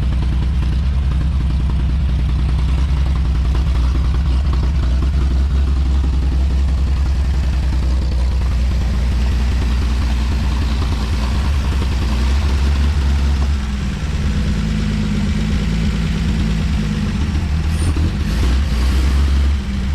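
1954 Chevrolet 3100 pickup's inline-six engine running rough and missing, the sign of a carburetor in need of rebuilding after years of sitting. The engine note shifts about two-thirds of the way through.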